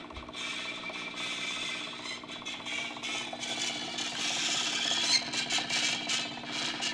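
Sears Silvertone portable tube record player running with a record on: rapid mechanical clicking and rattling from the turntable and stylus, growing busier after a couple of seconds, over a steady hum from the tube amplifier. Little of the music comes through; the owner blames busted tonearm wiring and a speaker that doesn't come out well.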